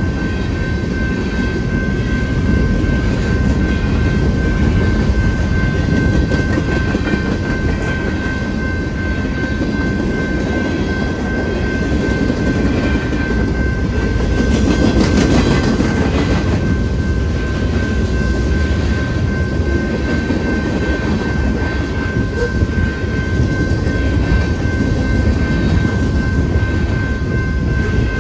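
Freight cars rolling past at a grade crossing: a steady rumble and clatter of wheels on the rails, growing louder and busier for a couple of seconds about halfway through. Over it runs a continuous high ringing tone, fitting the crossing's GS Type 2 bell sounding while the lights flash.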